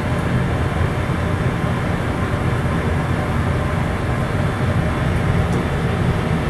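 Steady low roar of a commercial kitchen range, its burners and exhaust running without a break.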